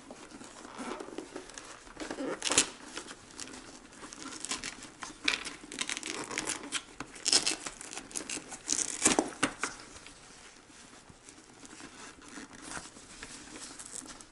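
Hook-and-loop (Velcro) fasteners ripping apart in short, irregular tears, with fabric and padding rustling, as a snowmobile helmet's cheek pads are pulled free. The ripping is busiest through the first nine seconds or so and quieter afterwards.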